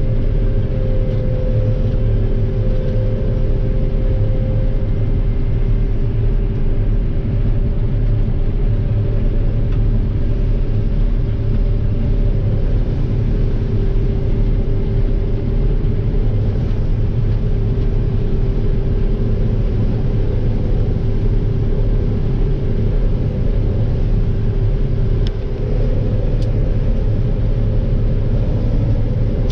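Combine harvester running steadily while harvesting soybeans: a constant low engine rumble with a steady whine above it.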